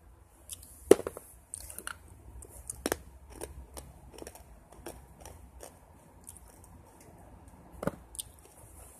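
Small plastic Shopkins toys being rummaged and handled, making a run of light clicks and clacks. The loudest clacks come about a second in, around three seconds in and near the end.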